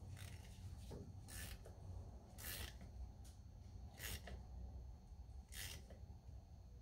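Ratchet wrench tightening the forcing screw of a camshaft gear puller on a DT466E engine's cam gear: four short, faint ratcheting bursts, one every second or so, as the puller is drawn up against the gear.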